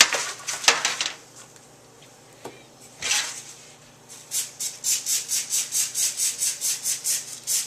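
Spray bottle spritzing onto food: a few short hissing sprays at the start, one longer spray about three seconds in, then a quick even run of spritzes, about three a second.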